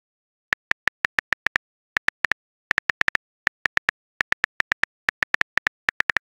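Keyboard typing clicks from a texting-story app: short, identical key taps in quick, irregular runs, one per letter as a message is typed out.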